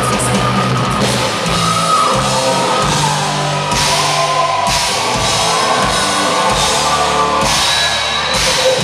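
Hard rock band playing live at full volume: electric guitars, bass and drum kit, with several crash cymbal hits.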